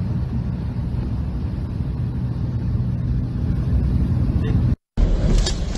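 Steady low engine drone of an aircraft, heard from inside its cabin. Near the end it cuts off in a brief dropout and gives way to loud rushing storm wind.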